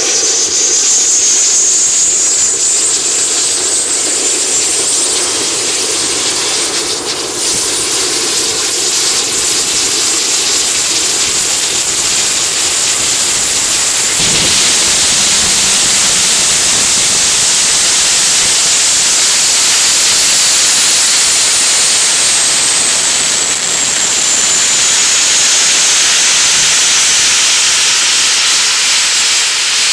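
Lycoming LTS101 turboshaft engine running just after light-off: a loud, steady rushing hiss with a high turbine whine that climbs over the first dozen seconds as the engine spools up. A sharp click comes about halfway through, and afterwards the whine sinks slowly.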